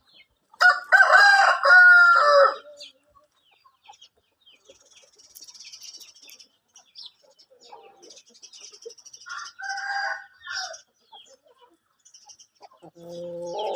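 Aseel rooster crowing once loudly for about two seconds near the start. Softer chicken calls and clucks follow later, with faint high chirps in between.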